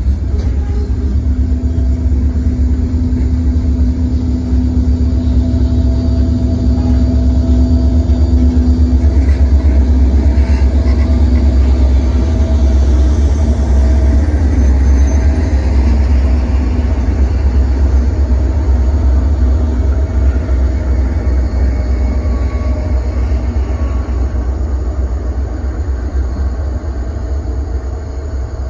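Genesee & Wyoming freight train passing close by: covered hopper cars rolling along the rails with a heavy, steady low rumble, then the orange diesel locomotives coming past from about halfway.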